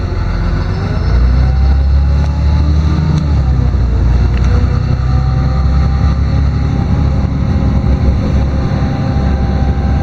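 LiAZ-6213.22 articulated city bus's diesel engine and drivetrain under way, heard from inside the passenger cabin. There is a heavy, steady low rumble, and a drivetrain whine that rises in pitch over the first couple of seconds as the bus gathers speed, then holds fairly steady.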